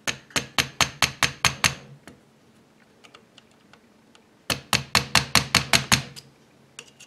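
Mallet tapping a brass punch to drive a stopping pin out of a rifle's wire stock: two runs of about eight quick, light taps, roughly four a second, the second run starting about four and a half seconds in.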